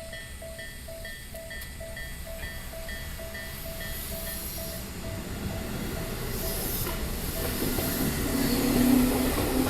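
Japanese electronic level-crossing alarm of the Isesaki type, dinging about twice a second, while the rumble of an approaching train grows steadily louder. A low steady tone from the train joins near the end.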